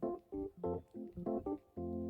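Background music on a keyboard instrument: a run of short, separate notes, then a held chord near the end.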